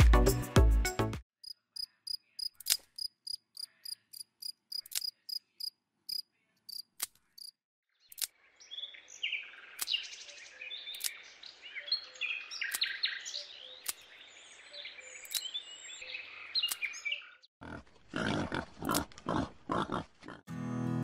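Background music stops about a second in. A run of sharp clicks follows, then several seconds of dense chirping like insects, and near the end a few short, harsh noises.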